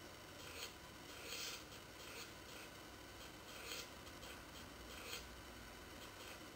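Faint rubbing of a fingertip stroking across an iPad's glass touchscreen while drawing, in a handful of short, irregularly spaced strokes.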